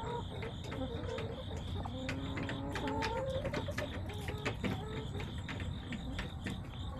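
Backyard hens clucking and murmuring in drawn-out, wavering notes, over a steady run of short clicks and taps.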